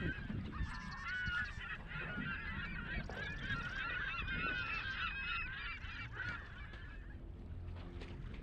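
A flock of gulls calling: many short, overlapping squawks, which die away about seven seconds in.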